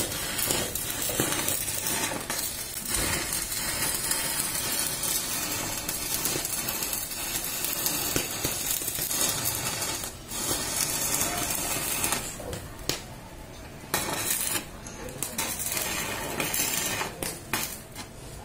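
Electric arc from an ARC 200 welding machine crackling and sizzling as it cuts metal, with the arc breaking off briefly several times in the second half.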